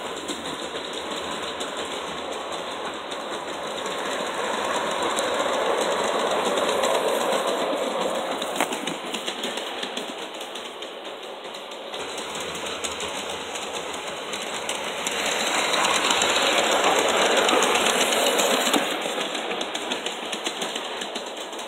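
LGB G-scale model train running along its track, its electric motor whirring and its wheels rattling on the rails. It grows louder twice, as it comes close and passes.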